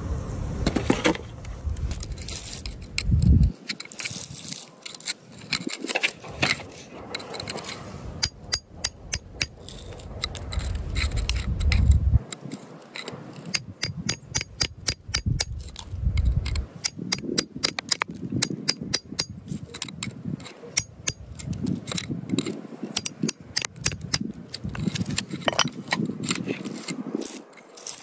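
A flat metal tool scraping and prying at gravelly soil around buried crystals. Many irregular sharp clicks as grit and small stones are knocked loose.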